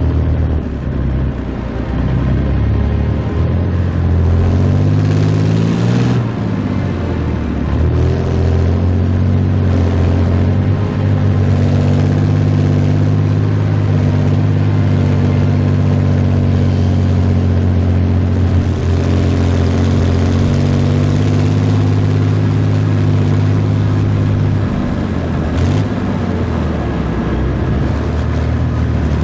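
Engine of a Soviet-era military vehicle running. Its pitch rises as it revs a few seconds in, then holds steady, and it shifts again near the end.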